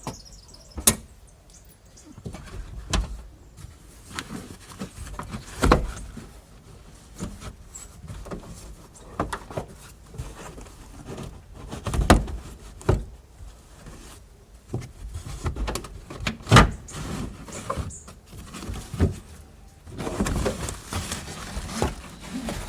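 Irregular clicks, knocks and thumps of car interior trim being pulled and pried loose by hand, with a few louder knocks and a rustling stretch near the end.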